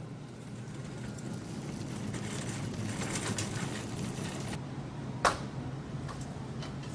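A wire shopping cart rolling across a hard store floor, its wheels and frame rattling, over a steady low hum. A single sharp knock about five seconds in.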